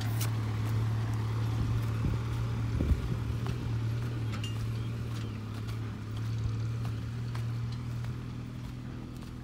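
Diesel engine running with a steady low hum, and footsteps on dry dirt.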